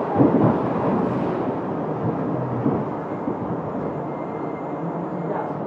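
Rumble and rattle of a New York City subway car heard from inside, growing gradually quieter as the train slows into a station.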